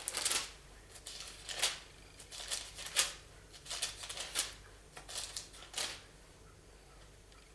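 Thin pages of a Bible being leafed through, a string of short papery rustles and flips that stops about six seconds in.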